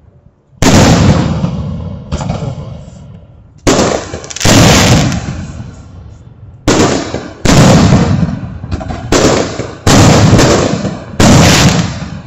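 Consumer canister shell fireworks firing and bursting: a run of about ten loud, sudden bangs at uneven intervals, some in quick pairs, each dying away over a second or so.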